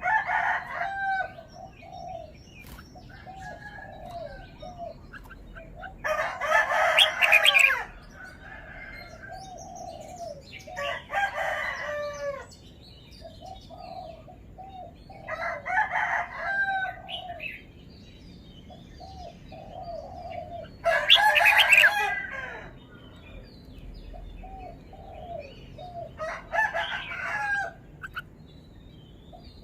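Red-whiskered bulbul singing: loud phrases of about a second or two, repeated roughly every five seconds, with softer short repeated notes between them.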